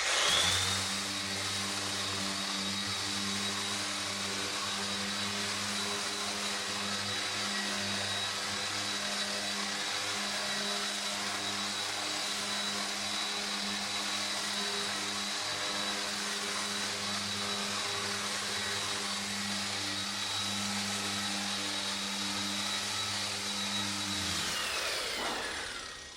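Electric power sander running steadily with a high whine, sanding linseed putty in the hull's plank seams back smooth; near the end it is switched off and its whine falls as it spins down.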